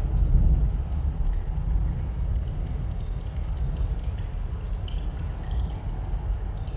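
Inside a cave, water drips in scattered small ticks over a steady low rumble of wind and weather outside, the rumble slightly stronger in the first second.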